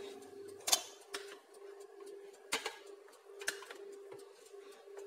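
Open electric toaster oven, just switched off hot, with a steady faint hum and four sharp metallic ticks at uneven spacing, the first and loudest less than a second in.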